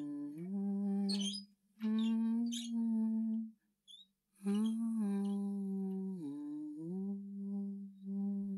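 A single voice humming a slow, wordless tune in long held notes, with brief breaths between phrases.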